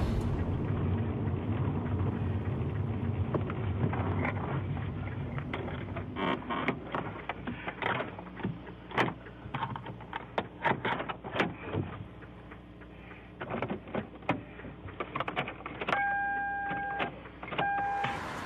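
Inside a bait car that police have remotely shut down, so it will not start: a low hum fades in the first few seconds. Then comes a run of sharp clicks and knocks as the driver works the ignition and controls. Near the end a steady electronic warning chime sounds twice, the first about a second long and the second shorter.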